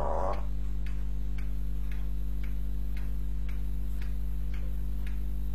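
Regular ticking, about two ticks a second, over a steady low electrical hum. A short voice-like sound fades out right at the start.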